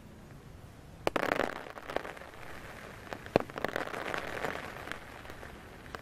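Tree leaves and twigs rustling and cracking as a hybrid macaque climbs through the branches. There is a sharp crack about a second in, then a short rustle, and a louder crack just past the middle followed by a longer spell of rustling.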